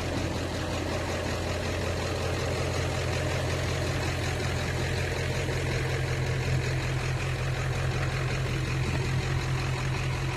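A vehicle engine running steadily, a low even hum with no revving or gear changes.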